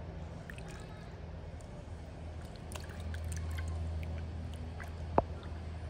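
Water sloshing and trickling in a shallow inflatable paddling pool as a baby monkey moves about in it, over a low steady hum. A single sharp knock near the end.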